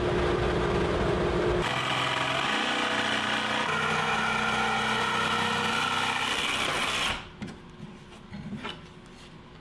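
Cordless jigsaw cutting a curve through plywood, running steadily for about five seconds and then stopping abruptly. Before it starts there is a steady machine hum for about a second and a half.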